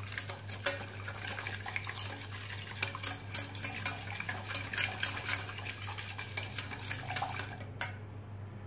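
Wire balloon whisk beating milk and flour in a stainless steel saucepan: a quick, uneven rattle of clicks and scrapes as the wires hit the pan, working out the flour lumps for a pastry cream. The whisking stops about eight seconds in.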